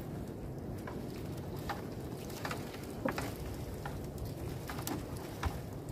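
Water dripping and splashing off a fishing net as it is hauled into a small boat: irregular sharp drips and light splashes, roughly one a second, over a steady low noise of wind and water.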